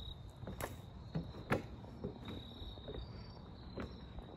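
Crickets chirping in a high, steady trill that fades in and out, with a few soft knocks, the loudest about one and a half seconds in.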